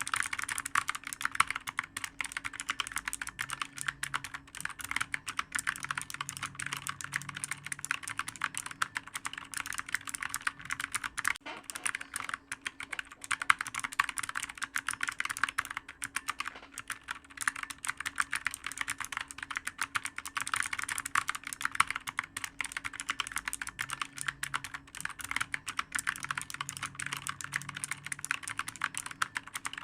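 Computer keyboard being typed on continuously: a fast, unbroken run of clicky keystrokes, with a faint steady hum beneath.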